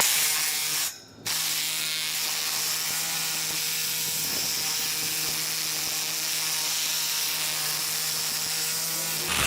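Reciprocating saw (Sawzall) with a carbide blade cutting through a thick wrought iron railing: a steady, even buzz that stops briefly about a second in, then runs on steadily.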